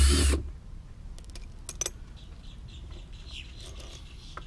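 Cordless drill backing out a bolt on the lid of a marine toilet treatment unit stops about half a second in. A few small, sharp metallic clicks follow as the loose bolts and nuts are handled.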